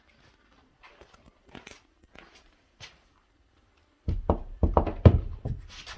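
Faint rustling and small clicks, then from about four seconds in a quick run of loud wooden knocks and thumps as a hand pushes on an OSB board hatch panel in a small wooden room.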